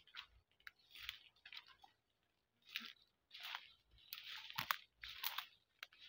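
Footsteps crunching through dry leaves and slashed brush, uneven steps with a short pause and one sharper crack about three-quarters through.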